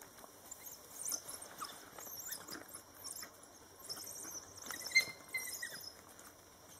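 A pack of African wild dogs making short, high-pitched twittering calls, with one longer held call about five seconds in.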